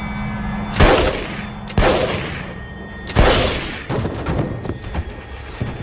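Three loud handgun shots, the first about a second in and the others a second and a second and a half after it, each with a short ringing tail. Several lighter knocks follow.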